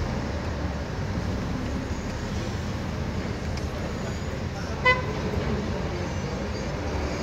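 Steady road and engine noise of a car being driven, heard from inside the cabin, with one short horn beep about five seconds in.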